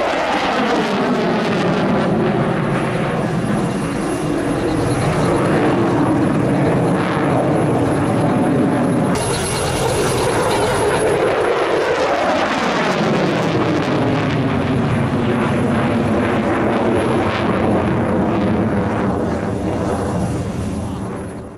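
Loud jet noise from a Eurofighter Typhoon's twin EJ200 turbofans as it flies past, with a sweeping whoosh that falls in pitch at the start and rises again about halfway through. The sound fades out at the very end.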